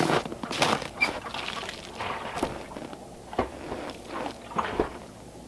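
Footsteps crunching in snow, a quick run of steps at first that grows fainter, then a few scattered crunches.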